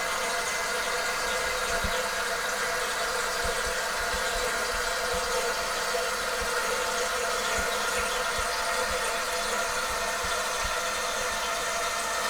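Toilet cistern refilling after a flush: water hissing steadily through the fill valve, with a steady hum of several tones.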